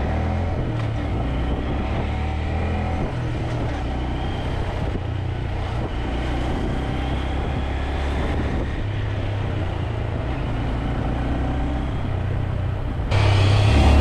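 Small motorcycle engine running at low speed in city traffic, heard from the bike itself, with a steady low drone that rises and falls a little with the throttle. About a second before the end the sound jumps suddenly louder, with a rush of noise over the engine.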